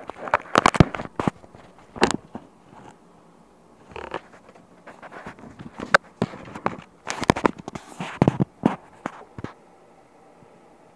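A pet squirrel scrambling against the phone, its claws and fur scraping and rubbing on the microphone in irregular bursts of sharp scratches and clicks.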